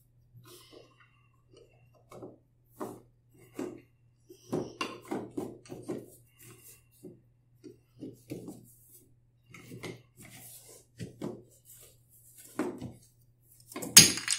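Wooden toy train track pieces knocking and clacking together as they are handled and pushed into place, in short irregular knocks with a sharp, loud clack near the end. A faint steady low hum runs underneath.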